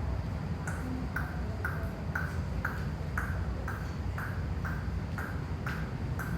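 A metronome-style ping beat, about two short pings a second, keeping time for the dance counts, over a steady low rumble.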